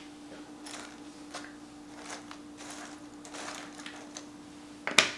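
Jigsaw puzzle pieces being picked through and sorted by hand: light clicks and rustles, with one sharper click near the end.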